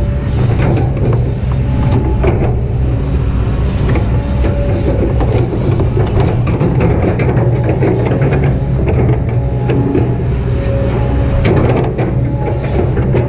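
Kobelco SK200-8 hydraulic excavator working: its diesel engine running steadily under load, with a whine that rises and falls as the hydraulics work and frequent clanks and rattles from the machine.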